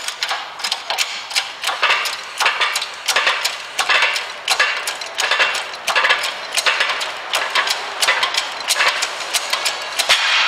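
Metal parts of a pressed-out front wheel bearing and hub clicking, knocking and scraping against each other and the steel press bed as they are worked free by hand. There are about two or three irregular sharp clicks a second.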